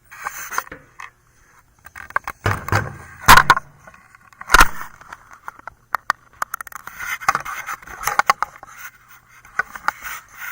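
Handling noise from a camera being picked up and repositioned: irregular rubbing and scraping with several sharp knocks, the loudest about three seconds in and again near five seconds in.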